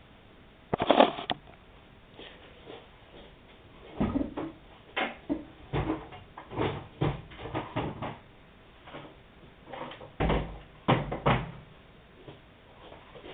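A series of clunks and knocks from handling washing machine parts: a loud clatter about a second in, a run of knocks over the middle, and a few more near the end.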